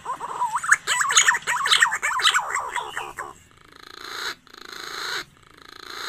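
Green pigeon (punai) song played as a lure call: a quick warbling run of rising and falling whistled notes, then a rougher, rattling series of notes near the end.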